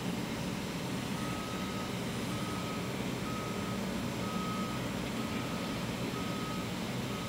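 A vehicle backup alarm beeping, one steady high beep about once a second, starting about a second in, over a constant low rumble of city noise.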